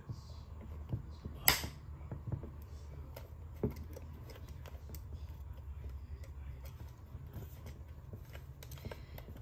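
Sharp little plastic clicks and taps as fingers work the cassette door of a Cricket talking doll onto its hinge prongs, the loudest about a second and a half in, with fainter ticks after, over a steady low hum.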